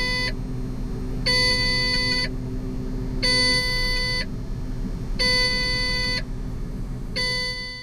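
A steering-fault warning alarm in a heavy machine's cab: a steady pitched beep, about one second on and one second off, over the engine running. It signals a steering fault: the steering cylinder rod has popped out of its joint.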